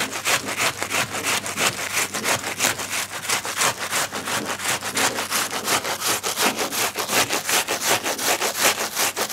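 Onion being grated on a flat stainless-steel hand grater: quick, regular rasping strokes, several a second, as the onion is rubbed back and forth across the metal teeth.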